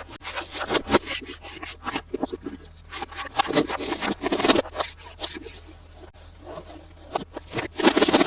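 Toy packaging being handled and opened close to the microphone: irregular scraping, rustling and crackling with many sharp clicks.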